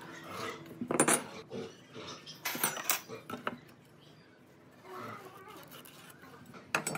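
Metal speed square clinking and knocking against the wooden blocks and clamps as it is handled and repositioned. There are a few sharp knocks, the loudest about a second in, a cluster between two and a half and three seconds in, and another near the end, with soft handling and scraping between them.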